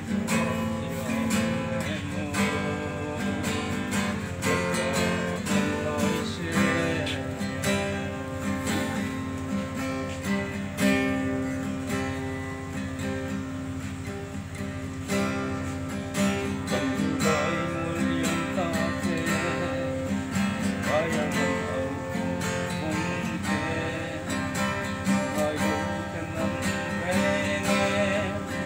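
Acoustic guitar strummed in a steady rhythm, with a man singing along over the chords.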